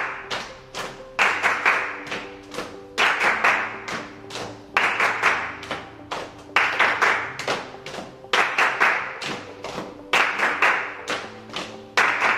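Music with a steady beat and rhythmic group hand clapping, with a denser burst of claps about every two seconds over sustained instrumental tones.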